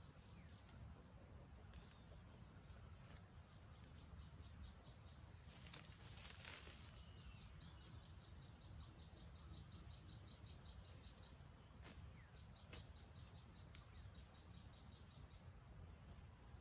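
Faint rural ambience: an insect chirping in an even, rapid series through the middle of the stretch, with a brief rustle of dry leaves about six seconds in.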